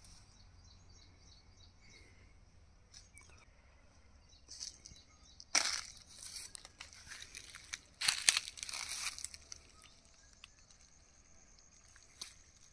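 Dry chili plants and leaves rustling and crackling in a few short bursts as they are pushed through and handled, the loudest about six and eight seconds in, over a faint steady high-pitched drone.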